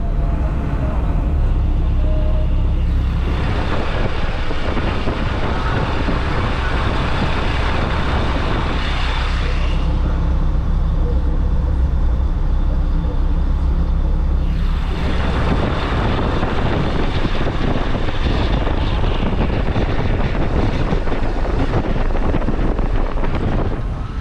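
A moving vehicle's engine and road noise: a steady low rumble, with a rush of tyre and wind noise that swells twice, for about six seconds from a few seconds in and again for most of the second half.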